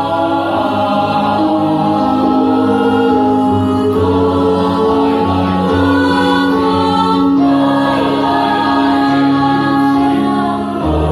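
A school choir singing in several vocal parts, mostly unaccompanied, holding long chords that change every second or two.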